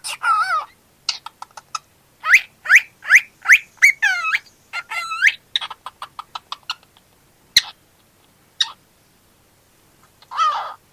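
Cockatiel chirping and whistling: a run of quick rising chirps and warbled notes with short clicking calls, thinning out to single sharp chirps a few seconds apart, then a brief warble near the end.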